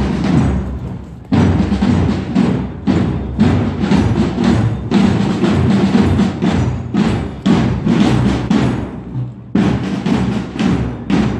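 Drums beating a steady marching rhythm, with two short breaks, one about a second in and one near the end.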